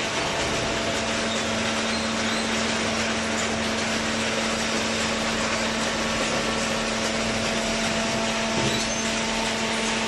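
Fully automatic hydraulic waste paper baler running: a steady mechanical drone with a constant low hum.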